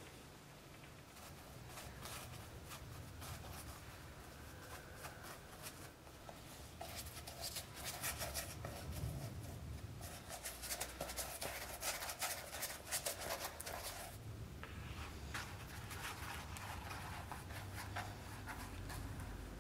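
A small glue brush scratching over the rough flesh side of leather in quick, short strokes, spreading contact cement. The strokes are lighter and sparser in the first few seconds, then dense and busy.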